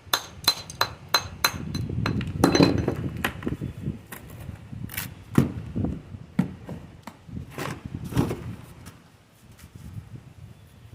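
A metal tool tapping and knocking on stone during stone masonry work: a quick run of sharp, slightly ringing taps in the first few seconds, then scattered knocks that stop about eight seconds in.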